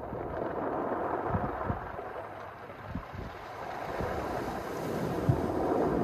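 Mediterranean waves washing in and drawing back over a pebble beach: the surf ebbs about halfway through and swells again near the end. Wind buffets the microphone with low thumps.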